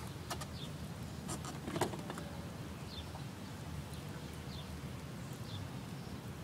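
Quiet outdoor background with a steady low rumble, faint bird chirps, and light clicks and a knock, about two seconds in, as a person steps up onto the ATV's footrests; the engine is not running.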